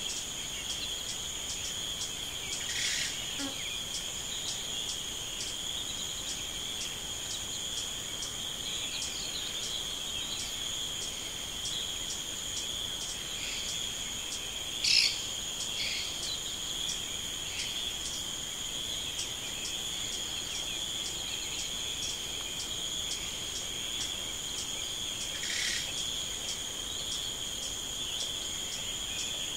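Steady high-pitched insect chorus, a continuous trilling with a regular pulse. A few short bird calls cut in, the loudest about halfway through.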